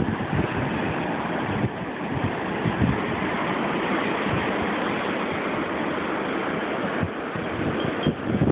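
Blizzard wind rushing steadily, with gusts buffeting the microphone in irregular low thumps.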